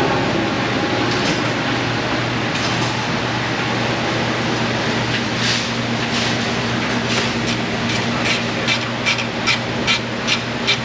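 A steady low mechanical hum, with scattered knocks of tools and parts being handled. About two thirds of the way in comes a run of evenly spaced sharp clicks, roughly two to three a second, like a hand tool being worked.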